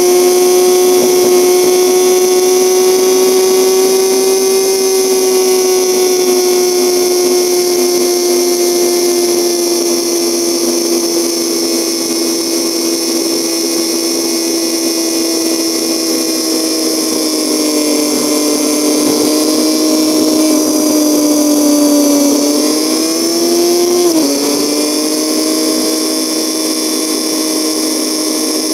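1973 BMW R75/5's air-cooled boxer-twin engine running at cruising speed, a steady droning whine whose pitch slowly eases down. Near the end the pitch climbs for a couple of seconds, then drops sharply at a gear change.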